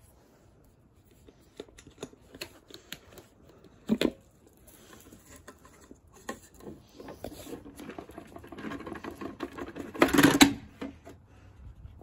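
Plastic clicks and clatter of a small bagless vacuum's clear dust canister being handled with the motor off, with a sharp clack about four seconds in. Then the canister's bottom lid hangs open and sequins and small debris rattle and patter out onto the rug, loudest just before the end.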